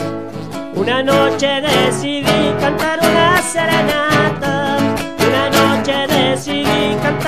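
Criollo acoustic guitars strumming and picking a gato cuyano, Argentine folk dance music, with men's voices singing over them from about a second in.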